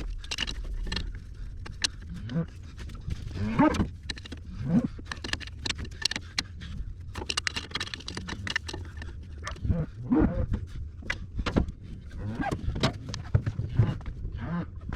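Cattle mooing several times, each a short bending call, over sharp clicks and clinks of metal tools.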